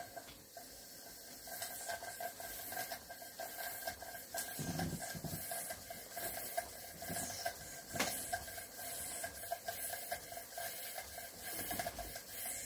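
Modified Jensen 20G model steam engine running on live steam: a steady hiss of steam with a fast, even pulsing as the engine turns over, and one sharp click about eight seconds in.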